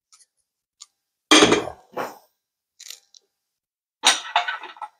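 Metal transmission parts, the TH400's direct clutch assembly, being handled on a workbench: a few separate clinks and clatters, the loudest about a second and a half in and a longer rattling cluster near the end.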